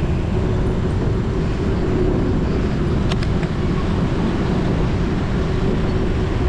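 Steady wind rumble buffeting a GoPro Hero 9's microphone while riding a bicycle at speed, mixed with road and tyre noise.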